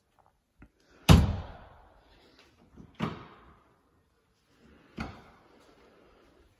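Three heavy thuds about two seconds apart, the first the loudest, each dying away over about half a second.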